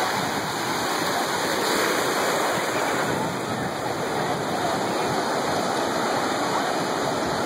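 Ocean surf: waves breaking and washing through shallow water in a steady, unbroken rush.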